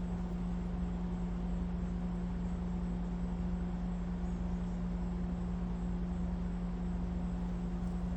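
A steady low hum at one constant pitch over an even hiss, with no sudden sounds.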